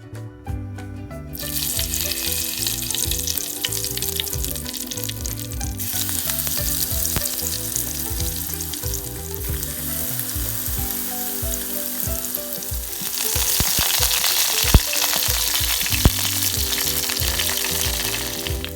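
Food sizzling as it fries in hot coconut oil in a pan, with stirring. The sizzle starts about a second in and grows louder about two-thirds of the way through, with a couple of sharp knocks near the end, over soft background music.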